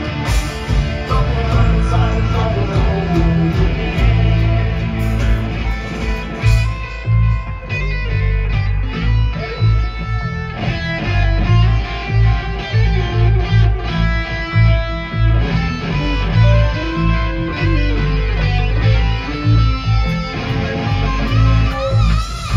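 Live rock band playing: electric guitars to the fore over bass guitar and drums, recorded from among the audience.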